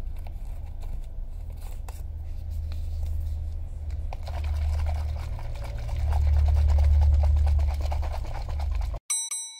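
A plastic baby bottle of warm water with powdered milk being shaken hard to mix, a rough rattling and sloshing that grows stronger about four seconds in and stops suddenly near the end. A short electronic beep follows.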